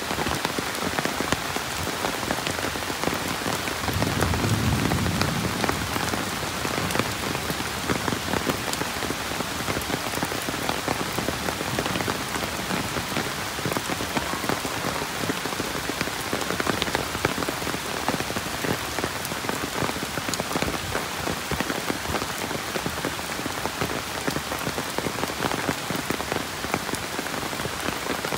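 Steady heavy rain falling, a dense hiss of countless drops pattering. A brief low rumble swells under it about four seconds in.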